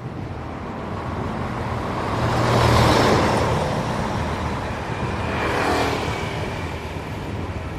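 Road traffic: two vehicles pass, the first swelling up and fading about three seconds in, the second about six seconds in, over a steady background of traffic noise.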